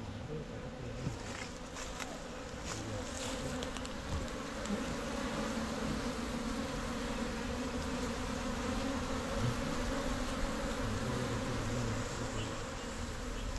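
A mass of honey bees buzzing around a box hive as a wild colony settles in from a hollow tree: a steady, dense hum that grows a little louder after the first few seconds.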